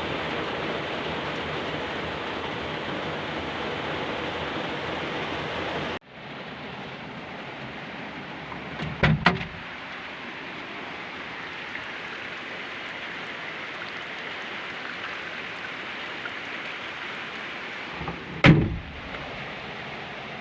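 Steady rain as an even hiss that cuts abruptly to a quieter rain sound about six seconds in. A quick double thump about nine seconds in and a single heavier thump near the end are the loudest sounds.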